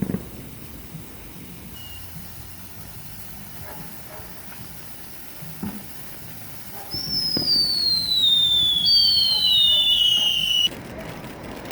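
Whistling consumer firework: after a few faint pops, about seven seconds in, two shrill whistles glide downward in pitch, overlapping, for about four seconds and then cut off suddenly.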